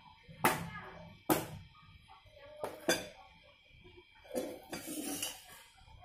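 Tableware clinking: four sharp clinks of a spoon and dishes over the first three seconds, then a longer clatter as a plastic food container is set down over the plate and handled.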